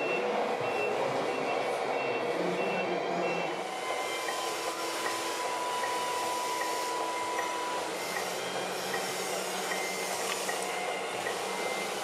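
Scale RC tipper truck's reversing beeper sounding in an even rhythm for the first few seconds, then a steady hydraulic whine for about four seconds as the tipper body lifts its load of soil, with a fainter repeating beep running on underneath.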